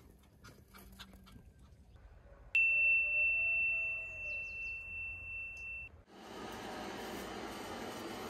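A steady high tone cuts in about two and a half seconds in and holds for about three seconds. Then a handheld butane gas torch hisses steadily as its flame is played over a raw chicken thigh to singe it.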